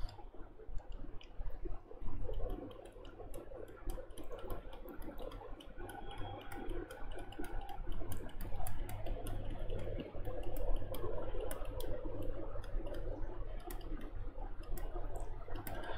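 Faint taps and scratches of a stylus writing, irregular small clicks over a low steady hum.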